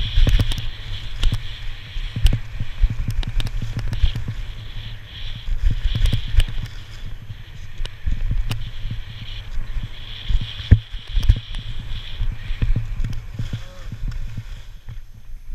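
Skis scraping over packed snow in a series of turns, a hiss that swells and fades with each turn, over heavy wind rumble on the microphone and frequent small knocks.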